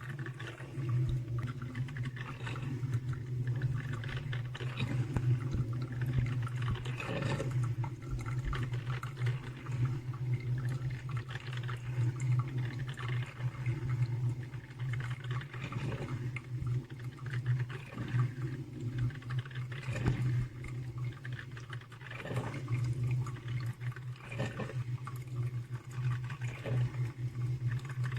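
Salter one-cup filter coffee maker brewing: water gurgling and spluttering through the machine in irregular bursts over a steady low hum.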